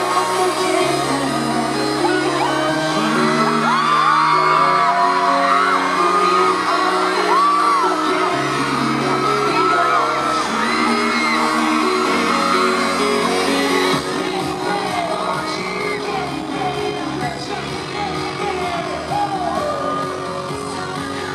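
Live pop song over arena speakers with held synth bass notes and a singer on a microphone, echoing in a large hall, while fans scream and whoop over it. The bass line stops about two-thirds of the way through and the music carries on a little quieter.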